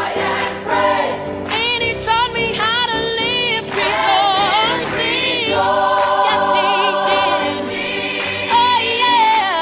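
Gospel choir singing over backing music, the voices wavering with vibrato and holding long notes in the second half.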